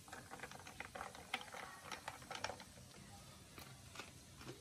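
Ice cubes clicking against a tall glass as an iced mint-and-lemon drink is stirred with a straw: a run of quick, faint clicks that thins out after about two and a half seconds.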